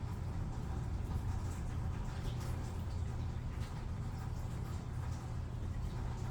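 Rain falling in a thunderstorm: a steady low rumble under a faint even hiss, with scattered small ticks. There is no sharp thunder crack.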